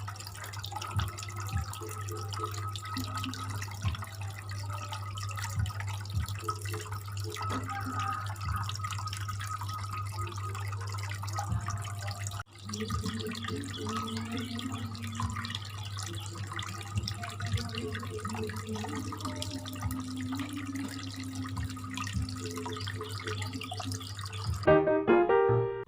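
Water trickling and splashing in a small cement fountain over a steady low hum, with a brief break about halfway through. Near the end a bright, tinkling music melody comes in.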